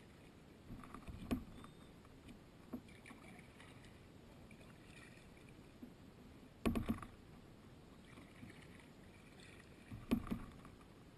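Kayak paddling on calm, slow river water: quiet paddle strokes, three of them louder and sharper, about a second in, a little past the middle, and near the end.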